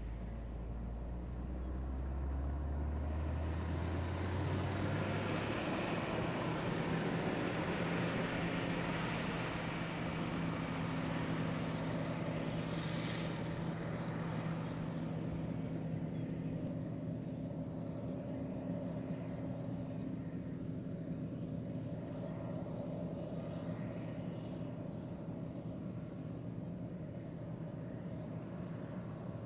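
A heavy vehicle's engine running, its pitch climbing in the first few seconds, then holding a steady drone. Through the middle there is a louder rushing noise and a faint high whistle that rises and then falls away.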